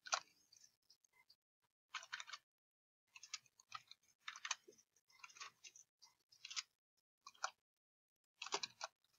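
Computer keyboard being typed on: faint keystroke clicks in short bursts of a few keys, with pauses between the bursts.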